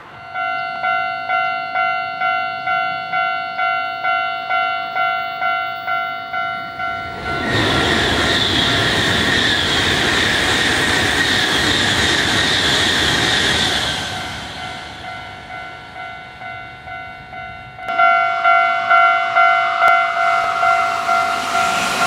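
Japanese level-crossing warning bell ringing its repeated 'kan-kan' at about two strikes a second. From about a third of the way in, a Tokaido Shinkansen train rushes past for several seconds and drowns the bell. The bell rings softer after the train has gone, then louder again near the end.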